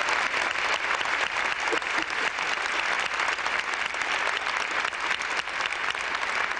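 A large audience applauding steadily, many hands clapping at once into a dense crackle.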